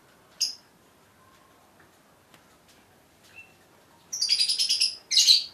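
Bird chirping: a short high chirp about half a second in, then a loud, rapid chattering trill about four seconds in, with a second short burst right after it near the end.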